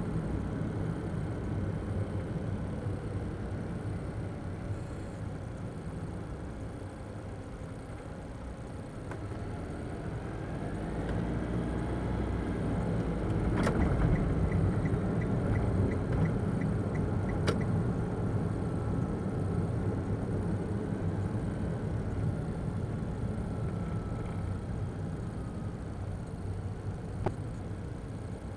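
Steady road and engine noise inside the cabin of a Daihatsu Move kei car driving at speed, heard through its dashcam's microphone; the three-cylinder 660 cc engine note rises about ten seconds in. A sharp click comes about halfway through, followed by a short run of faint ticks and a second click a few seconds later.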